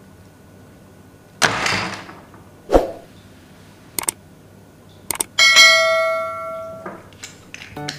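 Subscribe-button sound effects: mouse clicks followed by a notification bell ding that rings out and dies away over about a second and a half. Before them come a short rushing noise burst and a thump.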